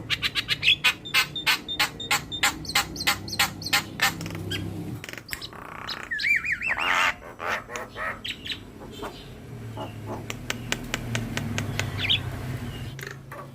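Javan myna (jalak kebo) singing: a rapid run of harsh clicking chatter for about the first five seconds, then a wavering, warbled whistle, then scattered squawks and short calls.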